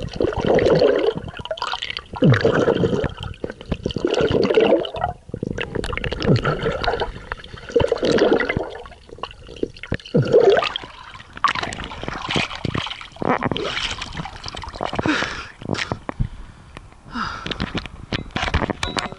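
Water swishing and gurgling around an action camera's waterproof housing held underwater by a swimmer, surging about every two seconds with the strokes. In the second half it turns to hissier splashing as the camera comes up out of the water.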